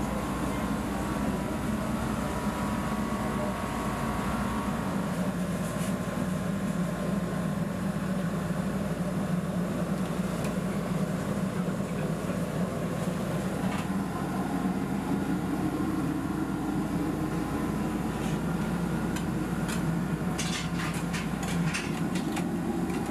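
Steady low hum of field kitchen equipment running. Near the end comes a quick run of light metallic clicks, like a wire whisk knocking against a metal pan.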